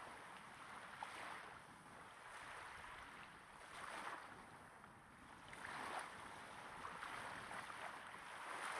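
Small waves breaking gently on a sandy shore, heard close up: a soft wash of water and foam that swells and fades about every two seconds.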